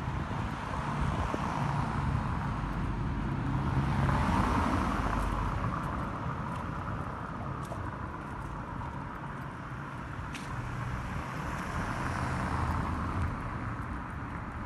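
A car driving past on a paved street, its engine and tyres growing louder to a peak about four seconds in, then fading away. A second, quieter vehicle swell comes near the end.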